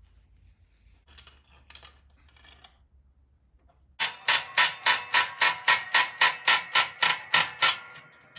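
Hand-pumped hydraulic bottle jack on a shop press: after some faint handling noise, a quick, even run of metallic clanks, about four a second, beginning about halfway through and stopping just before the end, as the handle is worked to press the transfer case's front output shaft into its new bearing.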